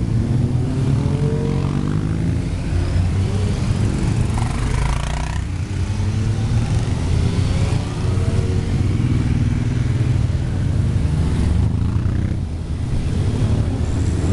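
Many motorcycles, sport bikes and cruisers, riding past one after another in a long column: a steady low engine rumble, with single bikes rising and falling in pitch as each goes by.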